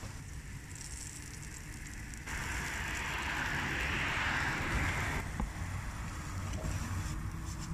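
Fried barbacoa tacos sizzling in grease on a flat griddle, over a steady low hum. The sizzle swells loud about two seconds in and drops back about five seconds in, followed by a light click.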